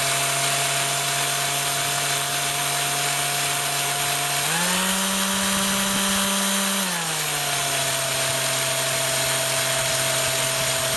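Electric drill running at slow speed with a steady motor whine as a small bit drills out the head of a rusted steel screw. About four and a half seconds in it speeds up to a higher pitch for a couple of seconds, then drops back.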